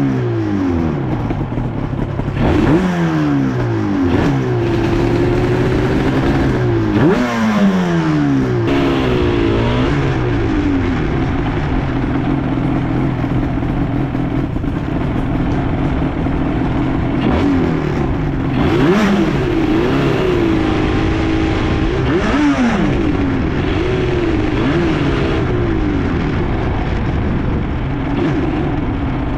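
Two-stroke motorcycle engine heard on board as the bike rides off. Over the first nine seconds or so it revs up in repeated rising climbs, dropping at each gear change, then runs at a steadier speed with gentle rises and falls.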